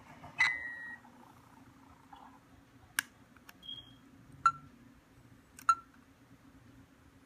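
Space: 1999 commlock replica prop clicking and beeping as its side button is pressed to step through the screen displays. There is a brief electronic tone near the start, then sharp clicks about a second apart, each with a short ringing tone, and one short high beep.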